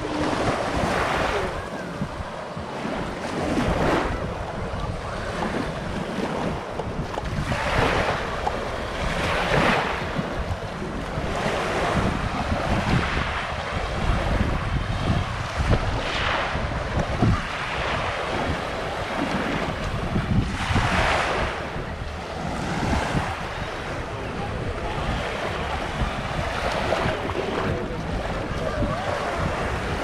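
Small waves breaking and washing up the beach every few seconds, with wind buffeting the microphone as a steady low rumble.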